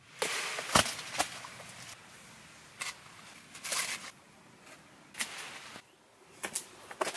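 A knife cutting through jackfruit stalks: a series of sharp snaps and knocks, spread irregularly, with short rustling stretches between them.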